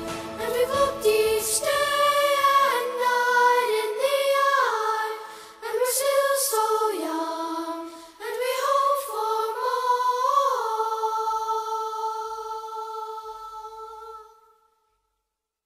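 Wordless singing of a slow melody of long notes that slide from one pitch to the next, the low backing dropping away about two seconds in to leave the voice unaccompanied. It ends on a long held note that fades out near the end.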